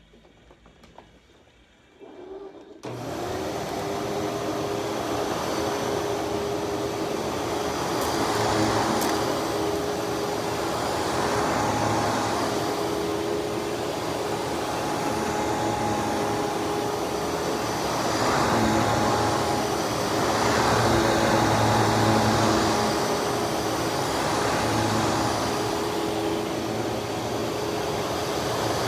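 Hoover Twin Chamber self-propelled WindTunnel upright vacuum switched on about three seconds in, then running steadily with a motor hum and whine, its sound rising and falling every couple of seconds.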